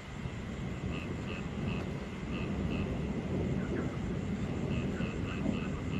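Steady rain with a low rumbling hiss, and frogs calling over it in short notes that come in quick little runs of two to four.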